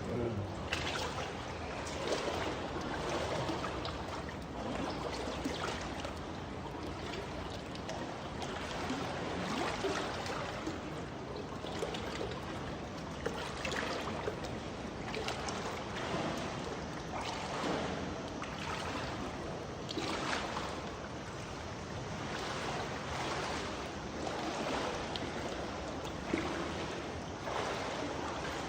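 Shallow cave water sloshing and splashing irregularly as people wade through it, over a steady trickle of running water.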